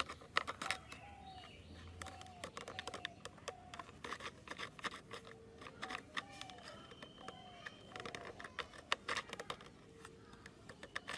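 Light clicks and taps of fingers handling small model parts of wooden craft sticks and plastic pipe, with a bird calling in the background in two runs of a short falling note repeated two or three times a second.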